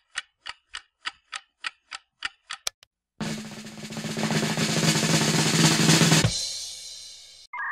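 Cartoon sound effects: a run of about ten evenly spaced sharp ticks, like a snare drum roll, over the first three seconds, then a loud rushing whoosh with a low hum that swells, cuts off abruptly and fades away as the car part flies into place.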